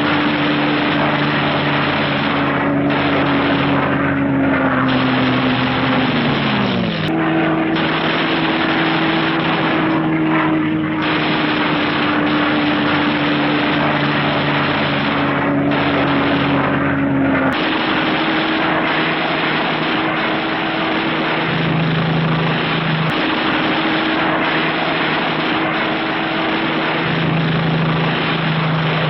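Propeller aircraft engine drone, steady and loud, with a humming pitch that slides down about six seconds in, jumps back up, and then steps to a new level several more times, with faint clicks at some of the steps.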